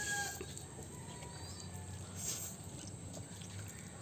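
Spicy instant noodles being slurped in from a fork, in two short bursts about two seconds apart, over faint bird calls and insects.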